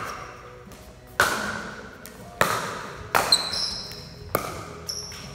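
Pickleball rally: sharp pops of paddles striking the hard plastic ball and the ball bouncing on concrete, about one a second with two in quick succession just after the middle, each ringing off the walls of a large echoing hall. Short high squeaks, likely sneakers on the concrete, come in between.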